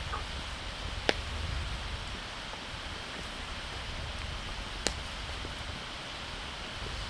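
Wood fire crackling in a fire pit: two sharp pops about four seconds apart over a steady hiss.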